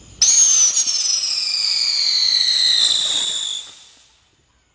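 Whistling firework shrieking loudly. It starts abruptly just after the start, its pitch falls steadily for about three and a half seconds, and it fades out about four seconds in.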